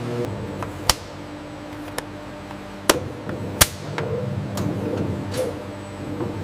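Steady machinery hum in a machine shop, broken by four sharp knocks spread over a few seconds.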